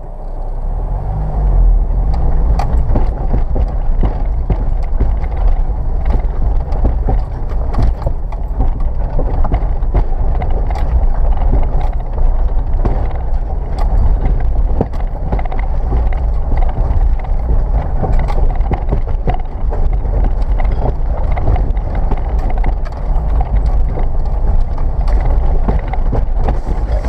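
First-generation Subaru Forester's flat-four engine running at low speed as the car crawls up a steep rocky track, heard inside the cabin with a heavy deep rumble. Frequent irregular knocks and clatters from the tyres and suspension going over rocks.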